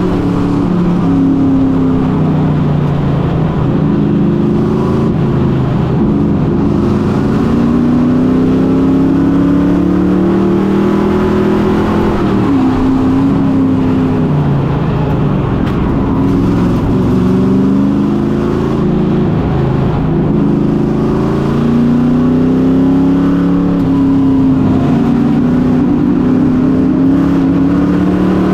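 Race truck's engine heard from inside the cockpit at racing speed, its pitch climbing and then dropping back every five or six seconds as it accelerates and lifts around the short oval.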